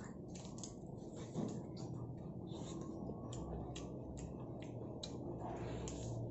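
A man chewing stewed bantam chicken with crisp skin, close to the microphone: irregular sharp mouth clicks and smacks, a few a second, over a low steady hum.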